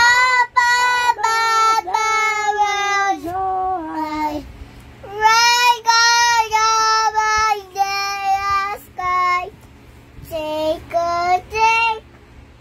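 A little girl singing in a high voice without clear words, holding long notes, with a brief pause about ten seconds in.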